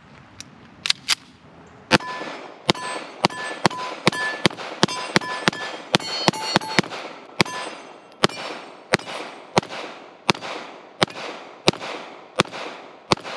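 A Springfield Prodigy DS 9mm 2011 pistol firing a long string of about two dozen shots from a 26-round magazine. The shots come fast, about three a second at first, then slow to roughly one every two-thirds of a second. Steel targets ring with a clang on hits through the faster part of the string.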